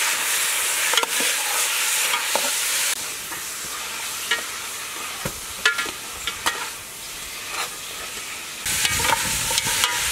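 Pork leg pieces sizzling in a hot aluminium pot as a metal ladle stirs them, with scattered sharp clinks and scrapes of the ladle against the pot. The sizzle dips quieter about three seconds in and comes back louder near the end.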